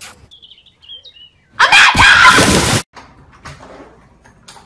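A loud scream about a second and a half in, lasting just over a second and cutting off suddenly, with faint bird chirps before it.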